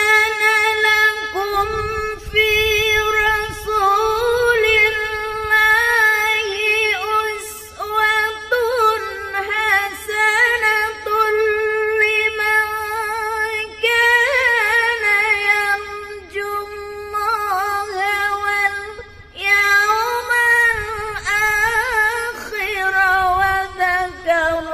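A woman reciting the Quran in melodic tilawah style, holding long notes with rippling, ornamented turns in pitch and brief pauses for breath between phrases.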